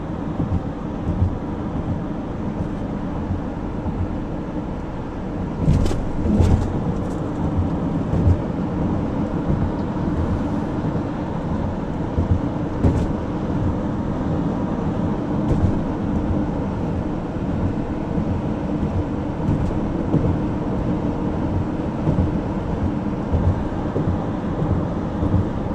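Road noise of a car in motion: a steady low rumble of tyres and wind, with a few short knocks, the loudest about six seconds in.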